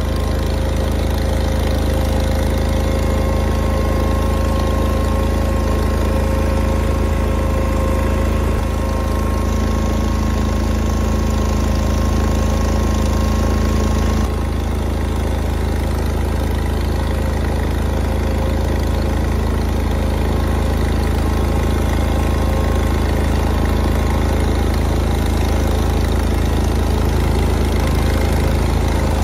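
Garden tractor engine running steadily, with a slight abrupt drop in level about fourteen seconds in.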